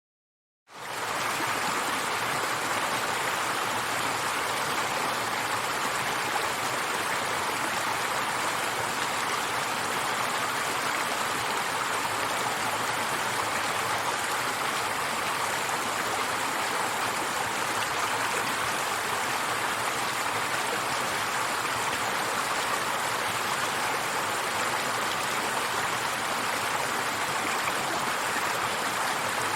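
River water flowing and splashing in a steady rush. It starts suddenly out of silence just under a second in and then holds an even level.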